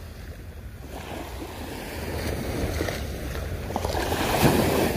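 Small sea waves washing up onto a sandy beach at the water's edge, the wash building to its loudest about four and a half seconds in, with wind on the microphone.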